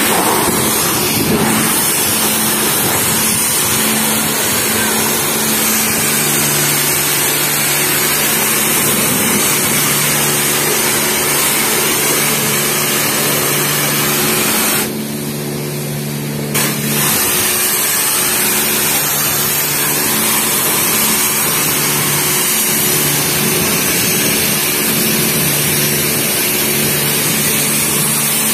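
High-pressure car-wash wand spraying water onto a car: a loud steady hiss over a low, even hum. About halfway through, the spray stops for a second or two while the hum goes on, then starts again with a short knock.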